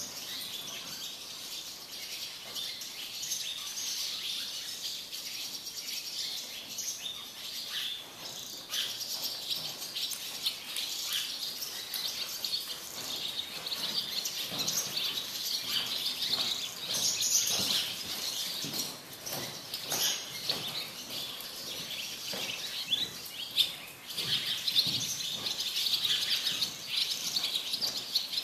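Small birds chirping continuously, many overlapping chirps.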